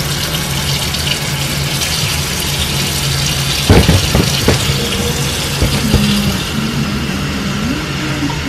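Kitchen faucet running steadily into a stainless steel sink, the stream splashing as hair is held under it, with a few knocks a little under four seconds in.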